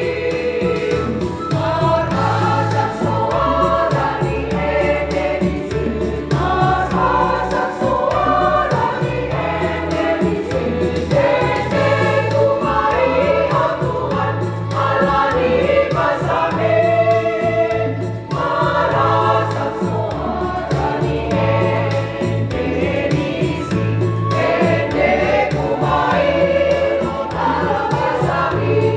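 Women's choir singing a hymn, sustained phrases over a low instrumental accompaniment.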